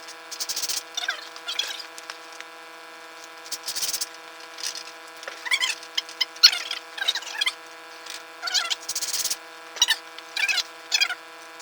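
Screws being driven into the wooden pieces of a wine rack, with short squeaking, rubbing bursts of screw and wood, repeated every second or so, over a steady hum.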